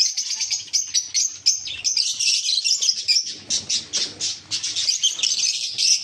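A flock of budgerigars chirping and chattering without a break, many quick overlapping chirps.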